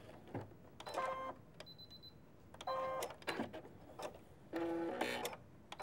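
Electric sewing machine running a decorative blanket stitch, in three short half-second runs with pauses between as the applique is guided around its curves.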